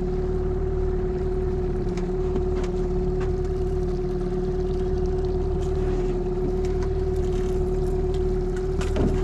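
Boat's outboard motor running steadily at trolling speed, a constant even whine over a low hum, with a few faint ticks.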